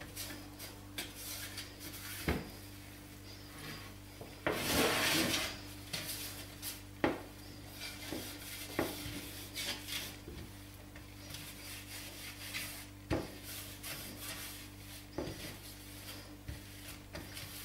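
A hand rubbing oil over a metal oven baking tray, greasing it, in quiet soft strokes with a louder stretch of rubbing about five seconds in. A few light knocks of the tray are scattered through it.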